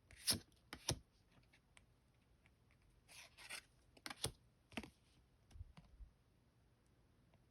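Pokémon trading cards being handled: short scrapes, rustles and clicks of card stock sliding and flipping, a few early and a cluster in the middle, then nearly quiet.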